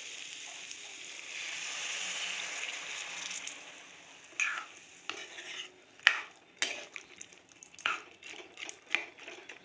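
Maggi noodles frying with a steady sizzle in a steel kadai. From about four seconds in, a steel spoon stirs them, scraping and clinking sharply against the pan several times.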